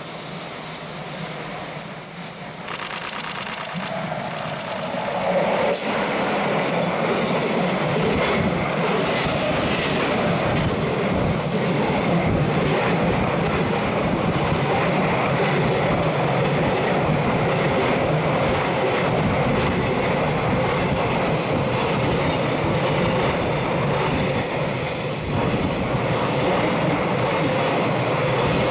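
EF66 electric locomotive drawing near and passing, followed by a long freight train of container wagons rolling steadily past on the curve. The wheels squeal at times.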